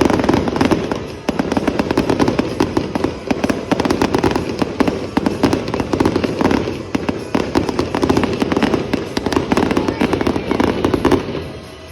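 Fireworks going off in a rapid, continuous barrage of bangs and crackles that starts suddenly and stops about eleven seconds in.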